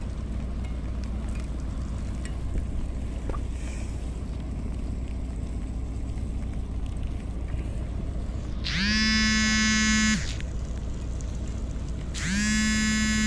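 Ship's horn sounding two blasts of about a second and a half each, a few seconds apart, the second near the end; each holds one steady pitch after a short slide up at the start. A steady low engine hum lies underneath.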